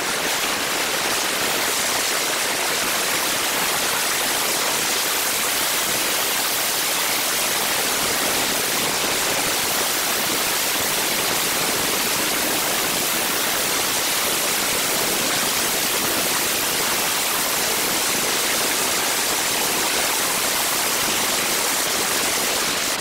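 Steady, even high hiss with little low end: the road and wind noise of a car driving, played back at ten times speed.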